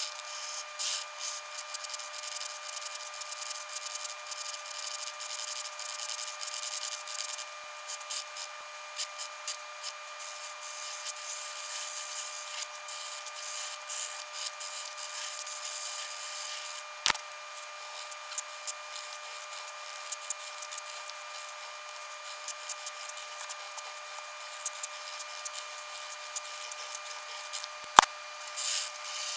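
Rapid scratching and rubbing of a pencil on paper, over a faint steady tone, with two sharp clicks, one about halfway through and one near the end.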